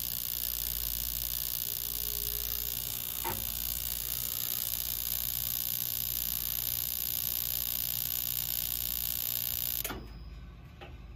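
Weil-McLain CGa gas boiler humming steadily with its controls powered while the electronic ignition tries to light the burner, with a click about three seconds in. Near the end a click comes and the hum cuts off: the burner has not lit, the sign of a failed gas valve.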